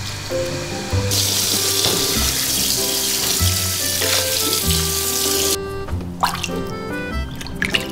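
Handheld shower sprayer running water onto a wet cat in a plastic tub. The spray comes on about a second in and shuts off a little past halfway, leaving a few drips and splashes. Gentle background music plays throughout.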